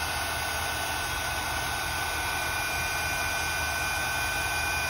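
Craft heat gun running on its highest heat setting: a steady rush of blown air with a faint, even high whine, as it heats mica powder over stencil dimension medium on card.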